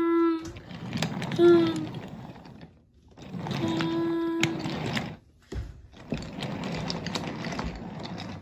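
Wooden toy train cars rolling and clattering along wooden track, with a few sharp clicks. A steady train-horn tone sounds in blasts over the rolling: one ending about half a second in, a short one, then a longer one of about a second.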